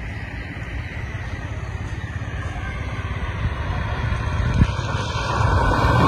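A car approaching along the road, its tyre and engine noise growing steadily louder, over a low rumble. A single low thump comes about two-thirds of the way through.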